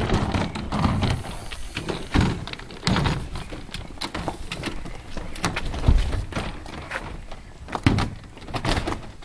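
Suitcases, including a hard-shell case, being lifted and loaded into the open boot of a car: a series of knocks and thumps, the loudest about two, three, six and eight seconds in.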